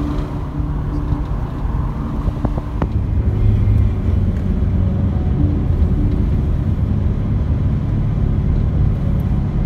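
A car driving along, heard from inside the cabin: steady low engine and road rumble, a little louder from about three seconds in.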